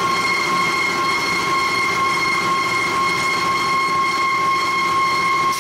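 Steady high-pitched machine whine with overtones over a low hum, from forge machinery running between blows; no hammer blow is struck.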